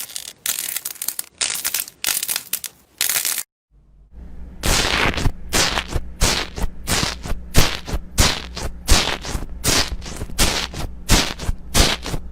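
Slime being squished and played with: a few seconds of crunchy squishing, then, after a brief cut, a rapid run of crackling pops, about three a second, over a low steady hum.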